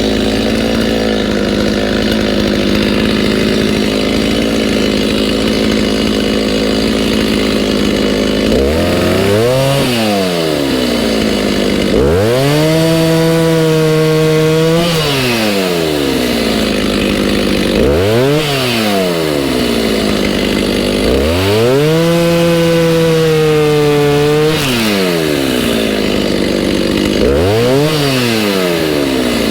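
Two-stroke chainsaw running at full throttle, then from about eight seconds in dropping to idle and revving back up several times, holding high revs for a few seconds each time, as it bucks a log into firewood lengths.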